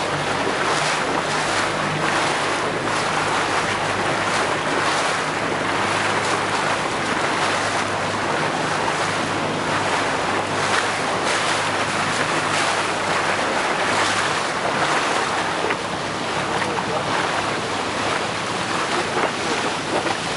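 A small boat's engine running with a steady low hum under water splashing against the hull and wind on the microphone; the engine hum weakens about 14 seconds in.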